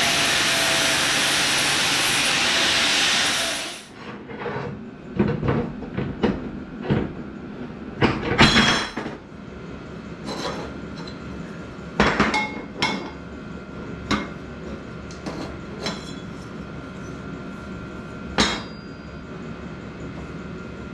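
A loud steady hiss that cuts off about four seconds in, followed by irregular metallic clanks and clinks, steel scrap pieces being handled and knocked together, the loudest about eight and twelve seconds in.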